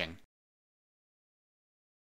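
A narrator's voice ends about a quarter second in, followed by dead silence with no background sound at all.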